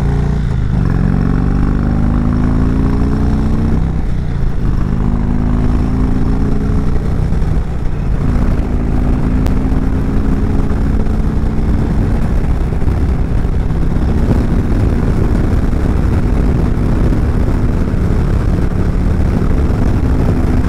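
Indian Chieftain Dark Horse's V-twin engine accelerating through the gears: its pitch climbs, drops at upshifts about four and eight seconds in, then holds steady at cruising speed, with wind noise over it.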